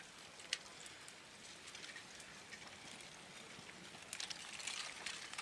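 Creeping rubbly lava flow front crackling and clinking as chunks of cooling crust break and tumble, in scattered sharp clicks with a cluster about four seconds in.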